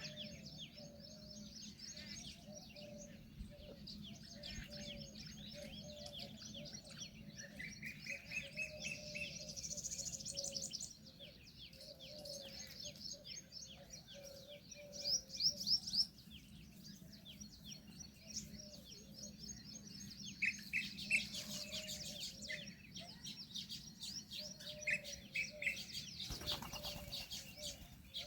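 Several birds calling together: many quick high chirps and trills, over a steady row of short, lower repeated notes.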